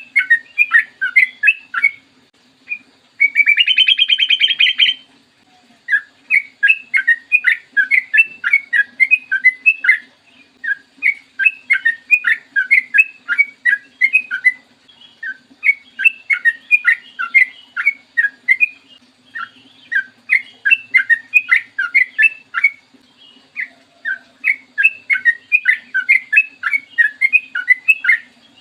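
Yellow-vented bulbul singing in long runs of quick, bubbly chirping notes with short pauses between phrases. A harsh, buzzy chatter breaks in about three to five seconds in. A faint steady low hum lies underneath.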